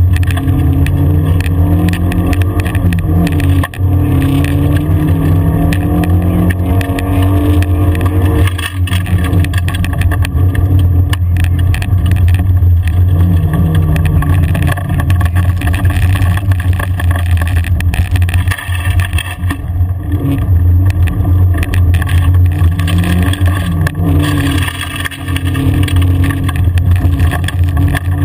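Car engine pulling hard as heard from inside the cabin, its note rising and falling several times with the throttle and gear changes, over the steady noise of tyres on a loose gravel track with frequent knocks and rattles.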